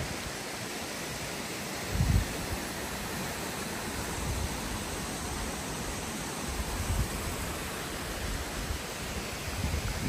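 Waterfall: a steady rush of falling water, with a few brief low gusts of wind on the microphone, the strongest about two seconds in.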